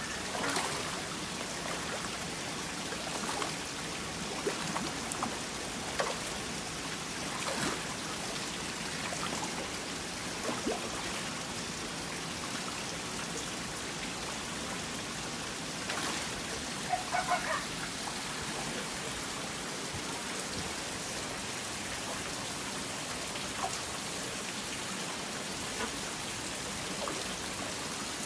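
Steady splashing and trickling of water pouring into a pond, with scattered sharper splashes; a brief cluster of louder sounds stands out about seventeen seconds in.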